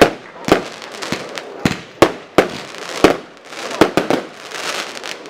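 Fireworks going off: an irregular series of sharp bangs, about ten in five seconds, with crackling between them.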